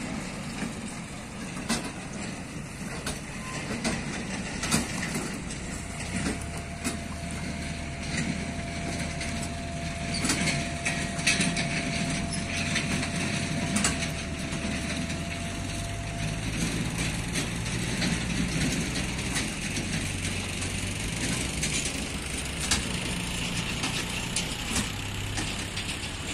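New Holland diesel tractor engine running steadily as it hauls two trailers heavily loaded with sugarcane, with scattered clicks and knocks.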